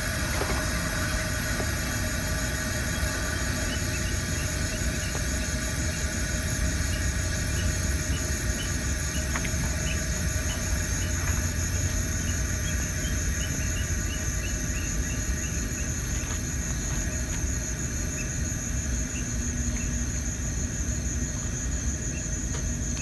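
A steady chorus of insects with a low rumble beneath it, and short faint chirps repeating through the middle.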